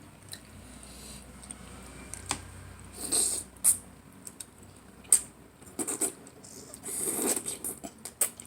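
Close-up eating sounds of spaghetti and bread: chewing and mouth noises, with many small sharp clicks and clinks of cutlery, and two longer noisy bursts about three seconds in and near seven seconds.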